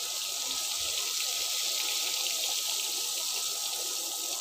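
Butter melting in hot oil in a kadhai, sizzling with a steady hiss.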